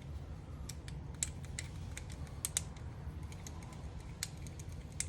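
Scattered sharp metal clicks and ticks as a flathead screwdriver works the hose clamps on a cold air intake's coupling, over a steady low rumble.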